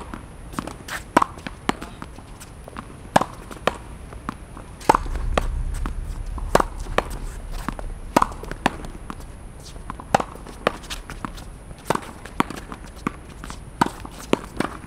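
Tennis ball being hit against a practice wall: a run of sharp knocks from the racket strike, the wall and the bounce, coming about every half-second to second. A low rumble comes in about five seconds in and dies away a few seconds later.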